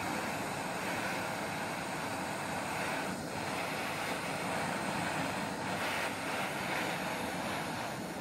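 Heat gun blowing a steady rush of hot air onto an aluminium hub, heating it so it expands to fit over a slightly oversized motor shaft.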